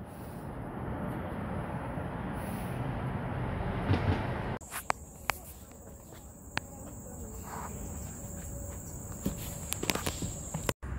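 Footsteps and rustling, then, after a cut, a steady high-pitched insect trill with scattered clicks from handling or steps.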